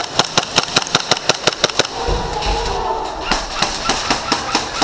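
Airsoft gun firing on full auto: rapid sharp cracks at about ten shots a second. The firing stops about two seconds in, a low rumble fills roughly a second, then the rapid fire resumes.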